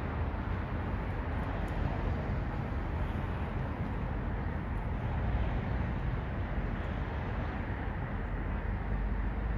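Steady outdoor background noise: a low rumble with an even hiss over it, and no distinct events.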